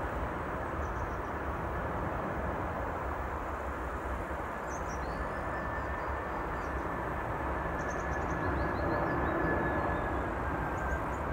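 Boeing 747-400 jet engines on landing approach: a steady rumble with a faint thin high whine, getting a little louder near the end as the aircraft comes closer.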